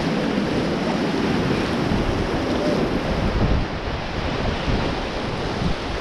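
Steady rush of fast river whitewater churning around an inflatable raft, with wind buffeting the microphone.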